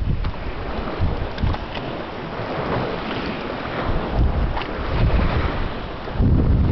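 Wind buffeting the microphone in gusts over choppy lake water.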